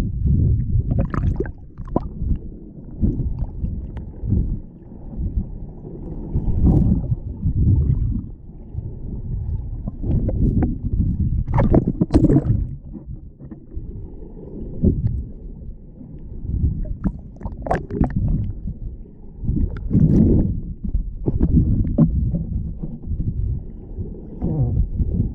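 Muffled water rumbling and sloshing against a GoPro's waterproof housing, swelling and fading, with short splashy bursts about every few seconds.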